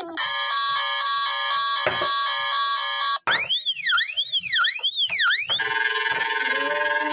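Electronic emergency alert tones in three parts. First a steady chord of tones that pulses briefly. Then, from about three seconds in, a siren whose pitch sweeps rapidly up and down about three times. Last, from about five and a half seconds, a harsher steady tone.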